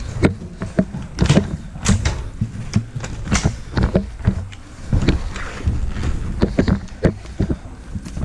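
A series of irregular knocks and thumps, one to three a second, over a steady low rumble.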